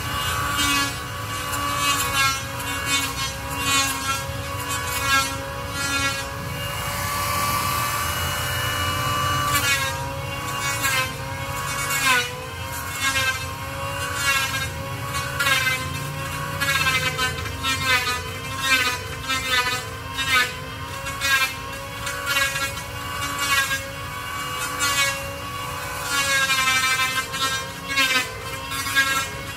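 Hand saw cutting a wooden plank in steady back-and-forth strokes, about two a second, each stroke with a wavering ring from the blade; the sawing stops for a few seconds about a quarter of the way in.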